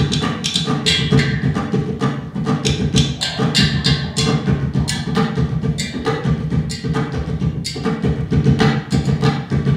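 Live percussive music: a fast, uneven run of clicks and taps over a low, steady drone.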